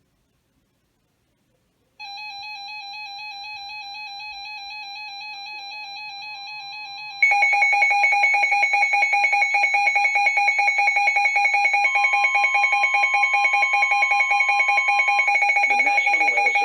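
Electronic emergency-alert tones from a weather radio alert. A steady warbling tone comes in about two seconds in. About seven seconds in, a much louder, rapidly pulsing tone takes over, with a faint higher steady tone under it for a few seconds.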